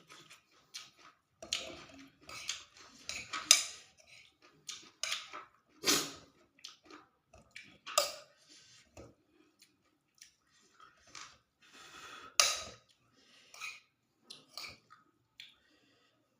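Close-up eating sounds: mouth-noisy chewing of fried rice vermicelli with tofu, with irregular sharp clicks of cutlery against a plate. The loudest clicks come at about three and a half, six, eight and twelve and a half seconds in.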